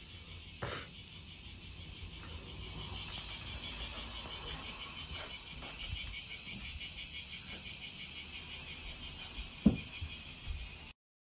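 Steady high chirring of insects, pulsing rapidly and evenly, with one sharp thump about ten seconds in. The sound cuts off suddenly just before the end.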